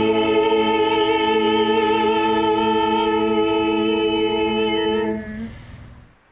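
A group of young voices singing together, holding a long sustained chord that cuts off about five seconds in and dies away.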